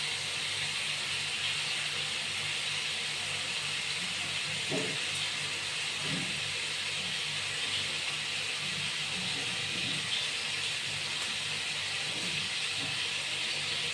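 Steady hiss of running water that holds at an even level throughout, with a couple of faint soft knocks about five and six seconds in.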